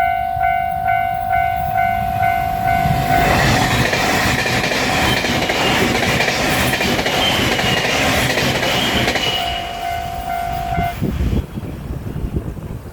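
Japanese railway level-crossing alarm ringing at about two strikes a second while a train passes over the crossing. The loud rushing noise of the passing train covers the alarm from about three seconds in until about ten seconds in, and the alarm stops about eleven seconds in.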